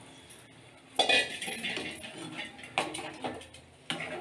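Metal slotted spatula clattering and scraping against a steel kadai while vegetables are stirred in hot water. Quiet for about a second, then a sudden metallic clatter with ringing, followed by a few more sharp knocks.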